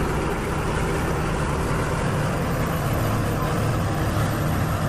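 Diesel engine of a McCormick farm tractor running steadily under load as it pulls a tillage implement through a ploughed field: an even low drone with a steady hiss over it.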